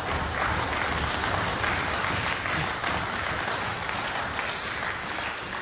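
Audience applause in a hall, a dense steady clapping that dies down near the end.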